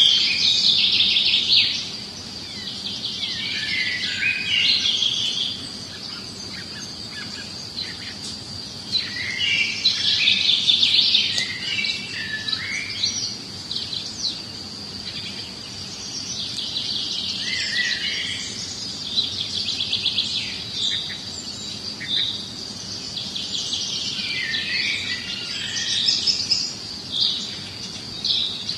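Small songbirds chirping and trilling in bursts every several seconds, over a steady high whine.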